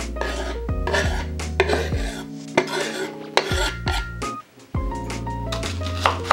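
A knife scraping chopped boiled egg off a wooden cutting board into a glass bowl, in a series of short scrapes, over background music.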